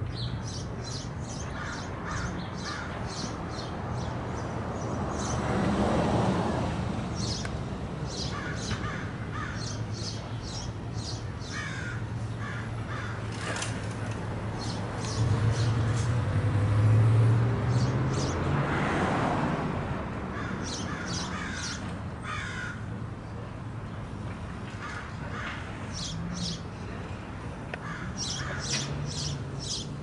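Birds calling over and over in short clusters of quick notes above a steady low hum, with a louder swell of passing traffic about 6 s in and again about halfway through.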